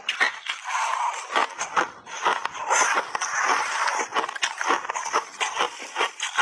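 Close-miked crunching and crackling of crushed block ice being chewed in big bites, a rapid, irregular run of sharp cracks, mixed with ice chunks grinding and scraping together in the hand.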